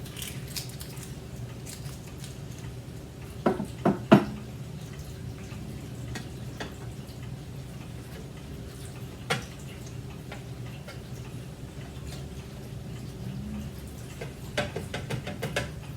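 Irregular sharp clicks and knocks from a wooden wall clock and its parts being handled. A quick group of three comes a few seconds in, one follows later, and a run of light clicks near the end, over a steady low hum.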